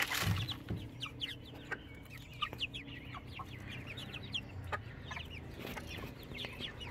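A flock of juvenile chickens peeping in many quick, high, falling chirps while they feed, with scattered sharp taps of beaks pecking at plastic feed trays.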